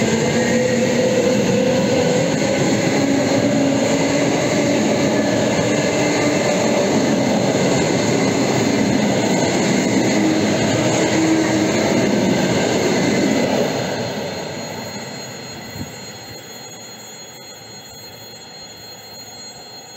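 EP2D electric multiple unit passing at close range: wheels running over the rails, with a traction-motor whine that glides slowly in pitch. About fourteen seconds in it falls away to a much quieter, steady distant train sound.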